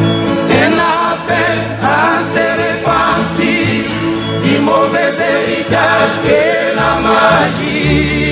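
Male choir singing a gospel hymn together, accompanied by several acoustic guitars.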